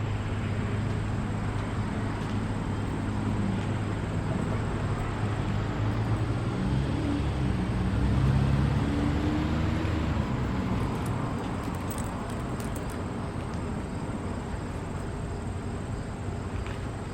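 A motor vehicle going by on the road, its engine rising to a peak about eight seconds in and then fading, over a steady low hum.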